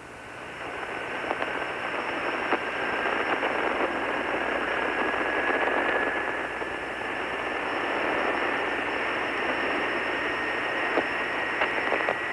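Radio static: a steady hiss, band-limited like a voice radio channel, with a thin whistling tone slowly rising in pitch and a few scattered clicks. The hiss fades in over the first couple of seconds.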